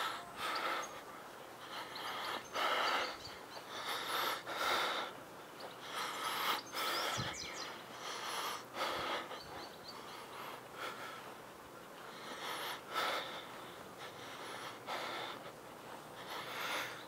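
Breathing of the person filming, close to the microphone: paired in-and-out breaths about every two seconds.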